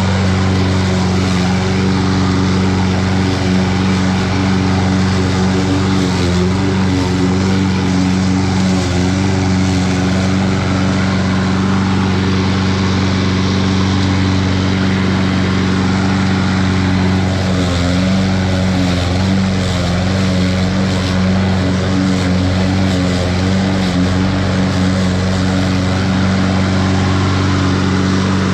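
Toro 21-inch walk-behind lawn mower running steadily at full throttle, its new blade spinning as it cuts grass into the bag.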